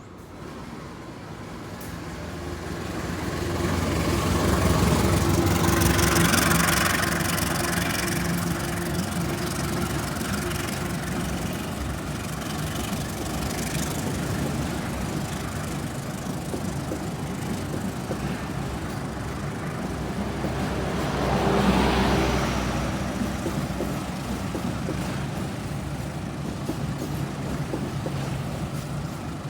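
Passenger train running, with a steady diesel engine drone and rail noise. It swells loudest a few seconds in and again briefly about 22 seconds in.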